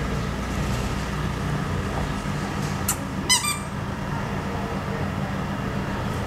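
A steady low rumble, with one short high-pitched squeak a little over three seconds in, just after a faint click.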